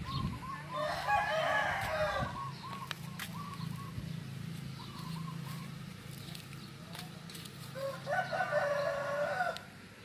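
Rooster crowing twice, each crow about a second and a half long, one about a second in and the other near the end. Short fainter bird calls come between the crows.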